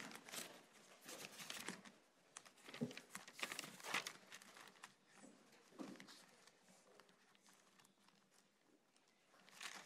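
Faint rustling and flipping of Bible pages being leafed through to find a passage. It comes in several short bursts, dies down to near silence in the second half, and picks up briefly again at the end.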